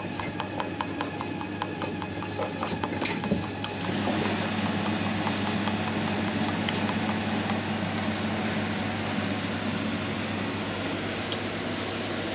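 Milkshake vending machine dispensing black cherry syrup into a cup of milk: the dispenser clicks rapidly and evenly for the first few seconds, then gives way to a steady mechanical hum as the syrup keeps pouring.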